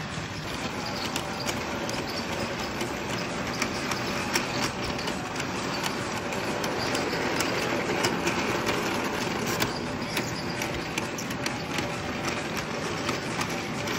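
Battery-powered Tomy Plarail toy train running on plastic track: a steady whirring run noise with many quick clicks and rattles from the wheels on the track.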